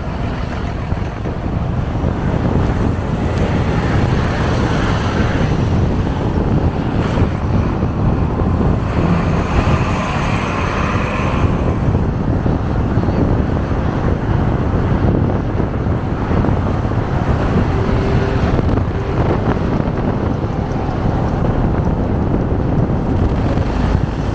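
Loud, steady low rumble of wind buffeting the microphone over vehicle noise, swelling now and then.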